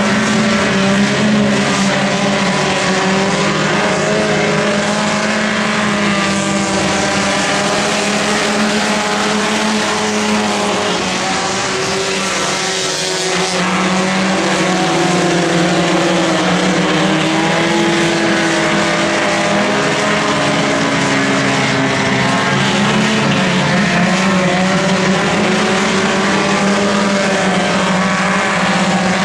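A pack of front-wheel-drive stock cars racing on a dirt oval, their engines running hard together, with the engine pitch wavering up and down as they go around.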